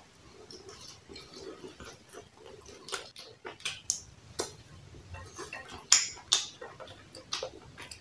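Fingers pulling and tearing at a roast turkey crown: soft crackles and sticky clicks of skin and meat coming apart, with two sharper clicks about six seconds in.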